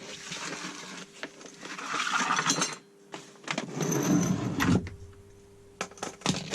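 Items being handled and moved about: two stretches of rustling and scraping, with a short high metallic ring about four seconds in, then a few light clicks near the end.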